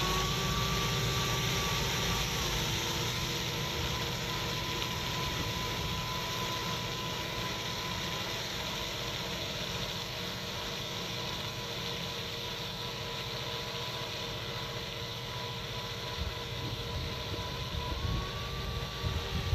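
Valtra C120 tractor running under load while pulling a slurry tanker that is spreading slurry, with a steady whine from the machinery running alongside the engine. It fades slowly as the rig moves off.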